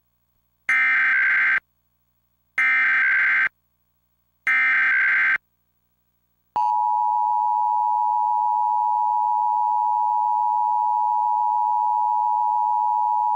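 Emergency Alert System test tones: three one-second bursts of SAME header data tones, evenly spaced, which encode the alert's type and area, then from about six and a half seconds in the steady two-tone EAS attention signal (853 and 960 Hz) that announces the alert message.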